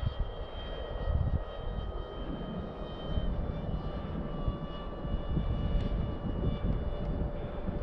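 Small electric RC plane's motor whining steadily overhead, its pitch shifting slightly about three seconds in, over an uneven low rumble of wind on the microphone.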